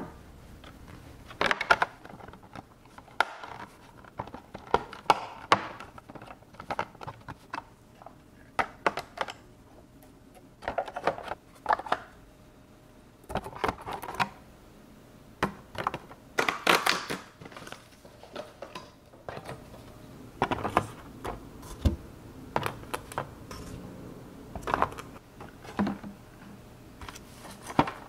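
Plastic yogurt cups and small yogurt-drink bottles being set and slid into a clear plastic fridge bin with a removable divider: light plastic knocks and clicks, coming irregularly, singly and in short clusters.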